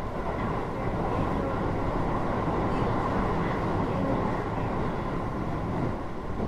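Keio 8000 series electric commuter train running, heard inside the car above its GTO-VVVF main controller: a steady rumble of wheels and running gear on the rails, growing a little louder about a second in.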